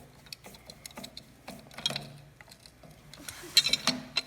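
Scattered light clicks and taps of hand tools and small hardware being handled, with a quicker run of louder clicks near the end.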